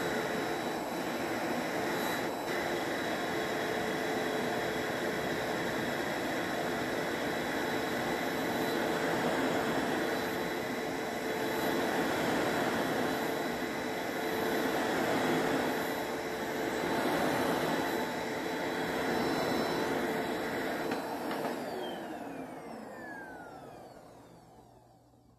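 Bissell StainPro carpet cleaner's motor running steadily with a whine, its brush roll turning on a newly fitted belt: the machine is working again. About 21 seconds in it winds down, the whine falling in pitch and fading away.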